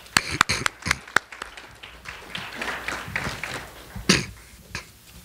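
Several sharp hand claps close to a microphone, then scattered applause from an audience that thins out. A brief louder noise stands out about four seconds in.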